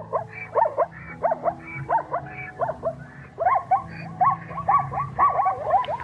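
Zebra calling: a rapid series of short, barking yelps, each rising and falling in pitch, coming more densely about halfway through.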